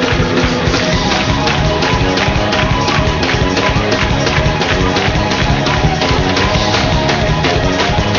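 Live gospel recording in an up-tempo shout-music dance break: the band plays a fast vamp over a quick steady drum beat.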